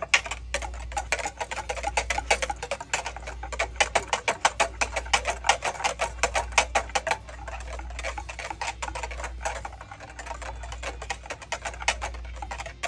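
Wire whisk beating fast around a mixing bowl, its wires clicking and rattling against the bowl several times a second, while stirring sugar and gelatine into boiling water until the gelatine dissolves.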